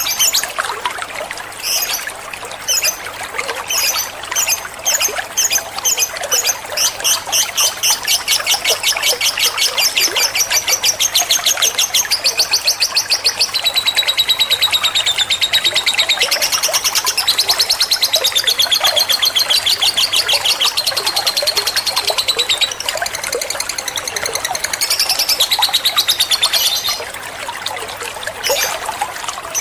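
Lovebird giving its long rapid chattering trill, a fast run of high chirps that comes in short bursts at first and then runs unbroken for about twenty seconds before stopping near the end.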